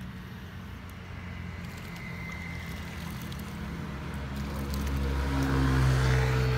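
Low, steady engine hum that grows louder through the second half as a motor draws nearer.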